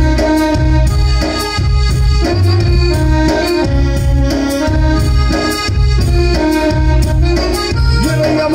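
Instrumental interlude of live traditional music: an electronic keyboard plays a melody in sustained notes over a steady beat from tabla and a hand-struck frame drum.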